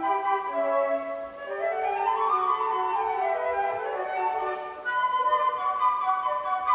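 Flute ensemble playing classical chamber music in harmony: held chords, then a run of notes that rises and falls back, about two to four seconds in, then full held chords again.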